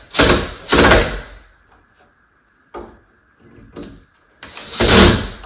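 Door lever hardware being worked into a door: loud scraping and knocking, twice in the first second and again near the end, with a couple of faint knocks between.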